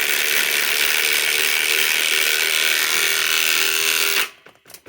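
RIDGID R872081 half-inch subcompact impact wrench hammering steadily on a stubborn fastener for about four seconds, then stopping suddenly, without breaking it loose.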